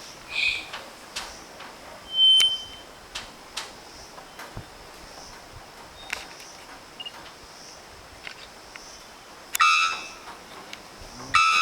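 Bellbird calling: short, loud, ringing single notes spaced seconds apart, one about two seconds in and two more near the end, less than two seconds apart.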